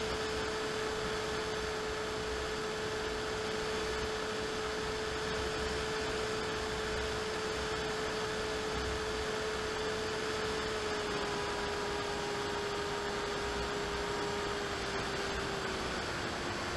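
Electric motor and propeller of an AXN Clouds Fly foam plane running steadily in flight, heard through its onboard camera: a steady hum over wind hiss. The pitch drops slightly about two-thirds of the way through and again near the end.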